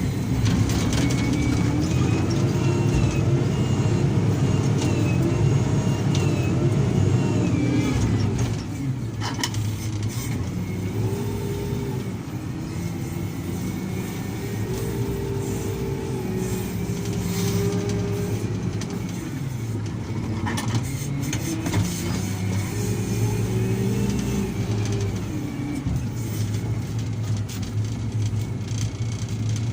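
Heavy construction machine's diesel engine working under load, its pitch rising and falling over and over as it revs up and eases off, with a few sharp knocks about nine seconds in.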